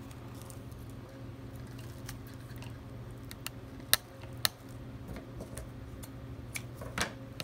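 Ribbon rustling and crinkling as a bow is pinched and looped by hand, with two sharp clicks about four seconds in. Near the end comes a scissors snip cutting the ribbon, over a steady low hum.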